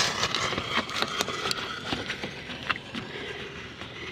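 Lit fuse of a fireworks aerial shell spraying sparks, a hiss full of rapid sharp crackles that fades after about three seconds.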